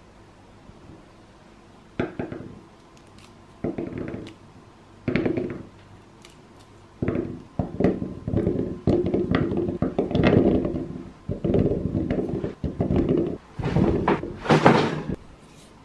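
Green grapes dropped by the handful into a wooden bowl: three separate thuds a second or so apart, then from about seven seconds in a quicker run of thuds and rolling rattles as the bowl fills, the loudest near the end.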